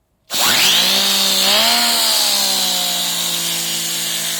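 Compressed air rushing through a rotating air-filter cleaning nozzle, switched on abruptly: a loud hiss with a whine that rises quickly in pitch as the nozzle spins up, then holds steady.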